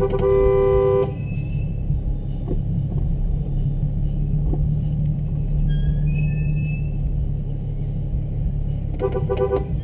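A two-tone car horn sounds for about a second, then a steady low rumble of car engines running, with another short horn blast near the end.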